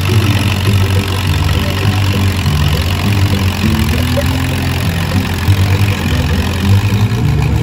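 Antique tractor's engine running under load as it drags a weight-transfer pulling sled.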